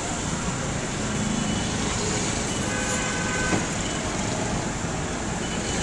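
Steady street traffic noise with tyres hissing on a wet road, a brief faint tone about midway and a single sharp click about three and a half seconds in.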